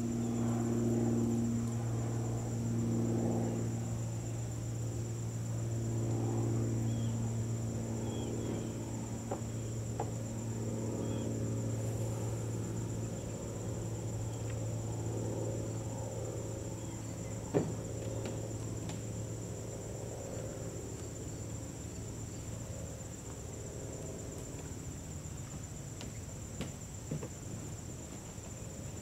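Steady high-pitched trilling of an insect chorus, over a low wavering drone that fades over the second half. A single sharp knock sounds about two thirds of the way through.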